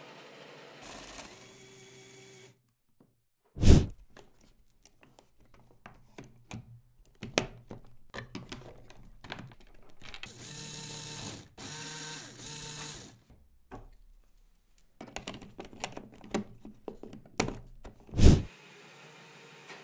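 LEGO Technic parts being handled: many plastic clicks and knocks, with two loud thumps about four seconds in and near the end. Around the middle, a LEGO electric motor whirs in three short spurts.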